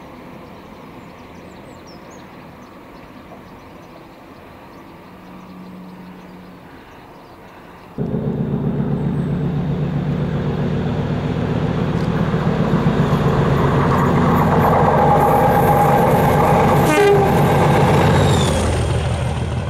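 Quiet, steady hum of a GWR Intercity Express Train drawing into the platform. About eight seconds in, the sound jumps to the much louder engine of class 37 diesel locomotive 37510, running past and growing louder until just before the end.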